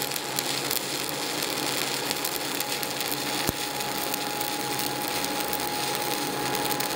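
Stick-welding arc (SMAW, 7018 rod) burning on a horizontal groove weld: a steady, dense crackle and sizzle with a faint steady tone under it. The pass runs quickly, and the arc stays put without arc blow.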